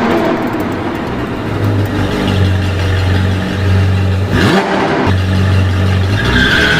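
Car engine running, its low hum dropping out and coming back a few times, with a rev that falls and rises in pitch a little past the middle.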